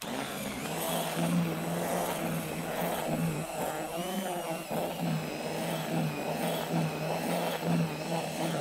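Cordless Makita drill running a whisk paddle through damp groundbait in a plastic bucket. The motor runs steadily, its pitch wavering briefly midway as the paddle churns the mix.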